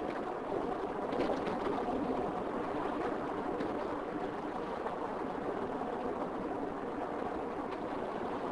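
Steady road and engine noise of a car driving along a country road.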